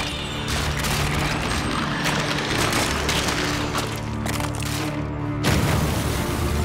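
Cartoon magic-transformation sound effects: a dense rushing rumble over dramatic music, then a loud blast about five and a half seconds in as a cracked stone wall bursts open.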